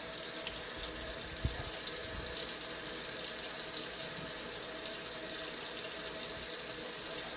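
Kitchen faucet running steadily into a stainless steel sink, with one soft knock about a second and a half in.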